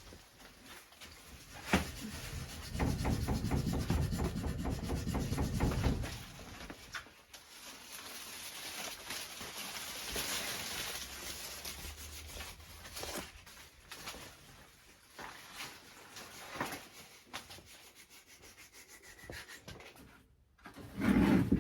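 Plant pots and artificial turf being shifted about on a floor: rubbing and scraping, with a louder rattling stretch a few seconds in, scattered knocks, and a heavy thump near the end.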